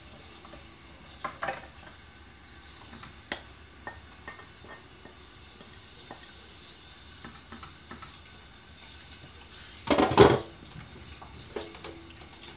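Garlic frying in a pot with a faint steady sizzle, while a spoon stirs and clinks against the pans. There is a louder clatter about ten seconds in.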